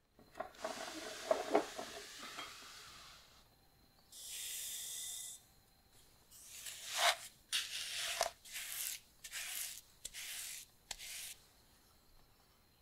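Flour rustling and hissing against the metal as a greased tube pan is shaken and tapped to coat it. Then comes a short, steady, high hiss like granulated sugar pouring, then about six gritty scraping strokes of a wooden spoon creaming butter and sugar in a glass bowl.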